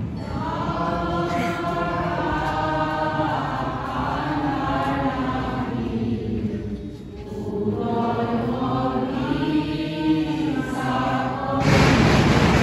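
Many voices singing a hymn together in long held notes, with a brief break about six seconds in. Near the end the singing gives way to a louder rushing noise.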